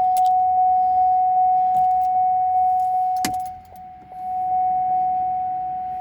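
A steady electronic tone held at one pitch, with light ticks about two or three a second. A sharp click comes a little past halfway, and the tone dips briefly before it comes back.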